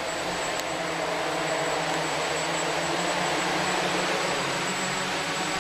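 Small electric RC model's motor running steadily under a constant hiss, with a thin high whine held throughout.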